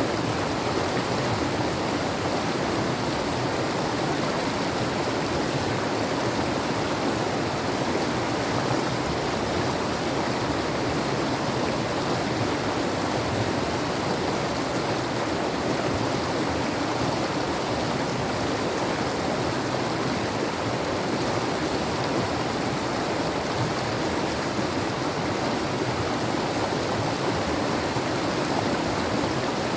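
Mountain river rushing: a steady, even water noise with no break.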